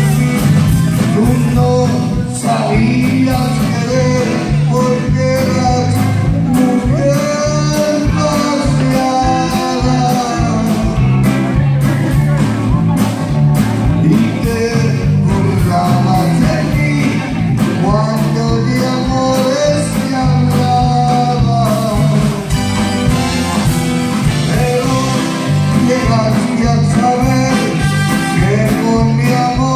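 Live blues-rock band playing: a lead singer over electric guitar, bass, drums and keyboard, heard loud and steady from the crowd.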